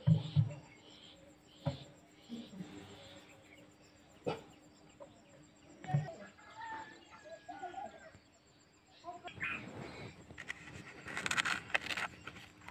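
Chickens clucking at intervals, with scattered knocks and clicks and a scratchy rustle late on.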